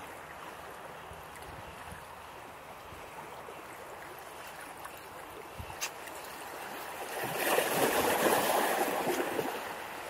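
Sea waves washing over shoreline rocks: a steady wash of water that swells louder for a couple of seconds about seven seconds in, with a single faint click just before.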